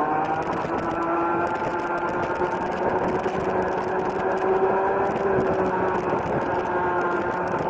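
Rotax Junior Max 125cc two-stroke kart engine at full throttle, heard from the driver's helmet camera. Its note rises in the first second, then holds steady and high near top speed, over wind and road noise.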